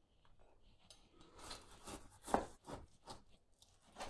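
Kitchen knife slicing through raw beef on a wooden cutting board: a few faint cutting strokes from about a second and a half in, one of them a sharper knock of the blade against the board.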